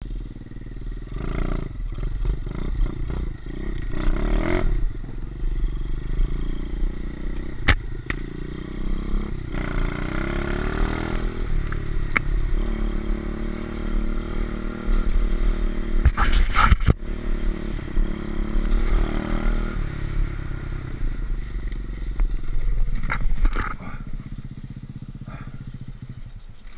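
Pit bike engine running and revving along a rough dirt trail, with sharp knocks and clatter as the bike goes over bumps. Near the end the engine note fades away as the bike slides over under front braking and goes down.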